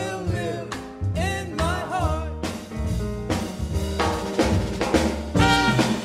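Small swing jazz band playing an instrumental passage over double bass and drums. Trumpet and alto saxophone come in together, louder, near the end.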